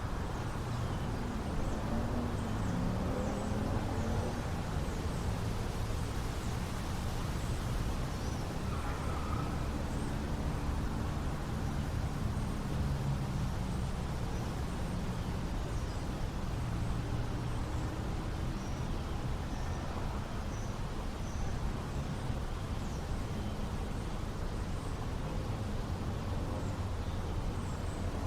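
Small-town outdoor ambience: a steady low rumble of wind and passing or distant cars, with faint short high chirps scattered through it.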